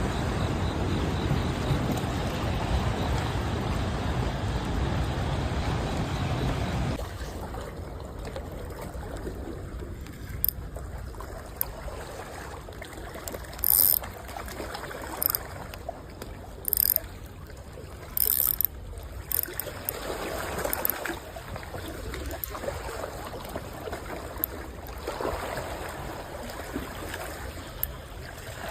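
Steady flowing water at a dam, with wind buffeting the microphone for the first seven seconds or so, then quieter. Several short, sharp high-pitched sounds come between about ten and nineteen seconds in.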